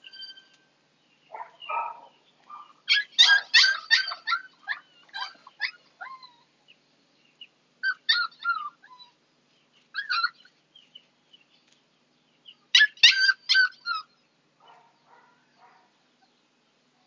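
Husky puppy yelping and whining in repeated bursts of high-pitched cries, loudest about three and thirteen seconds in, while it has its temperature taken with a thermometer.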